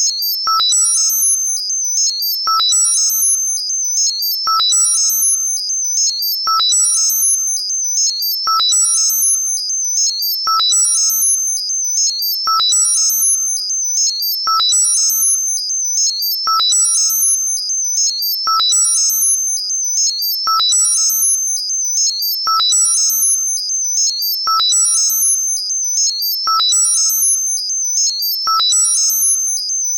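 Synthesized high-pitched tinnitus masking sound, a modulated pattern that repeats about every two seconds. Each cycle opens with a click and a short mid-pitched beep, followed by a flurry of quick, very high stepping tones over a steady high whistle.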